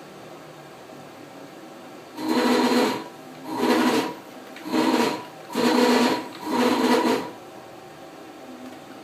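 Stepper motors of a Chinese 6040 CNC router whining as an axis is jogged in five short moves, each under a second, starting about two seconds in.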